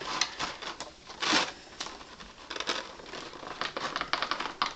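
Clear plastic packaging tray crinkling and crackling as hands flex and pull at it, in many short irregular crackles with one longer, louder crackle about a second in.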